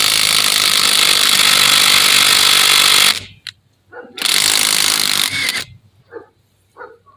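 Hyper Tough 20V brushless cordless 1/2-inch impact wrench hammering on a truck lug nut: one long burst of about three seconds, then a shorter burst of about a second and a half. It is breaking loose a lug nut that had been tightened extra hard, and it gets it off.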